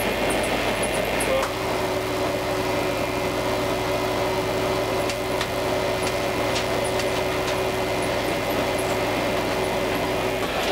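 Diesel railcar running, heard from inside the driver's cab: a steady engine drone with a few held humming tones. The sound shifts about a second and a half in.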